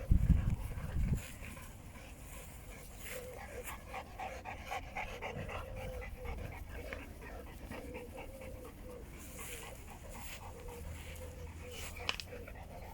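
A dog panting steadily. A brief low rumble in the first second is the loudest sound, and there is a sharp click near the end.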